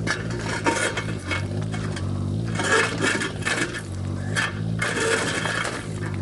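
Diesel engine of a Kubota KX019 mini excavator running steadily, with three spells of scraping and clinking as its bucket works through wall rubble.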